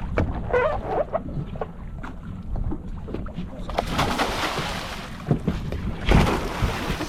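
Steady low rumble of a fishing boat with wind on the microphone, scattered knocks, and two bursts of loud rushing noise, about four seconds in and again near the end.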